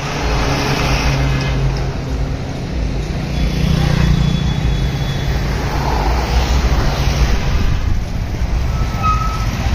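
Road traffic noise: motor vehicle engines running and passing in a steady low rumble, with a brief high tone about nine seconds in.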